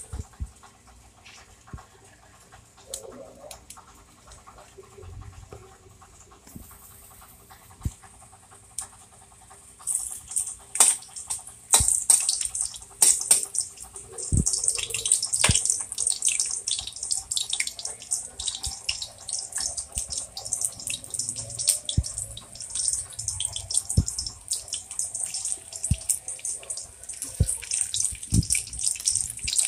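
Garlic frying in hot oil in a wok. It starts sizzling and crackling about a third of the way in and keeps on steadily, with a metal ladle knocking and scraping against the pan as it is stirred. Sliced onions are frying in the oil by the end.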